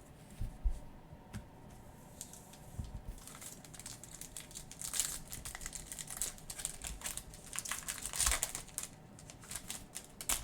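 Foil trading-card pack wrapper being crinkled and torn open, in a run of rustling bursts loudest around the middle and near the end. A soft thump comes about half a second in.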